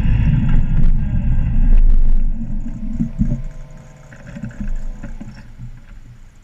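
Suzuki GSX-R750's inline-four engine with a loud low rumble of wind and engine as the bike rolls in, which drops off sharply about two seconds in as it stops, then a quieter steady idle that fades near the end.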